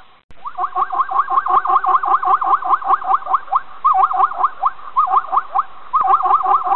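Zebra calling: a rapid barking series of high yelping notes, about seven a second, in bouts broken by short pauses. The sound cuts out for a moment just after the start.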